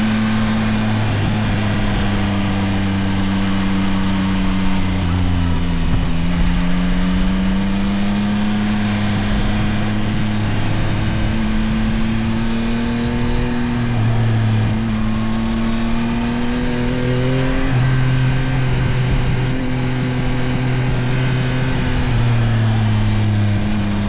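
Yamaha CP3 890 cc inline-three engine of a Tracer 9 GT+ motorcycle running under way. Its note rises and falls with the revs and jumps in pitch a few times as it changes gear.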